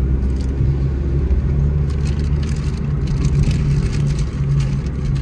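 Vehicle engine and road noise while driving: a steady low rumble, with a slightly higher hum that comes and goes over and over.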